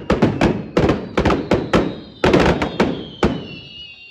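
Firecrackers strung on a burning Judas effigy going off in a rapid, irregular string of bangs that thins out and stops a little over three seconds in. A faint high whistle slides slowly down underneath.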